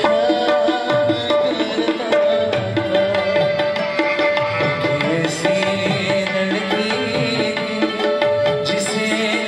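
Live song accompaniment: tabla playing a steady rhythm, its low drum sliding in pitch, under a long held melody line.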